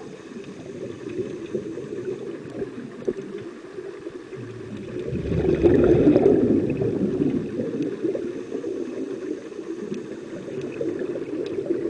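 Scuba divers' regulator exhaust bubbling, heard underwater, swelling loudest about halfway through as a larger burst of bubbles is breathed out.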